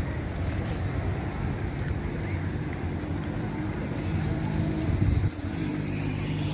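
An engine running steadily with a low hum, with wind rushing over the microphone; a brief louder bump a little past five seconds in cuts off sharply.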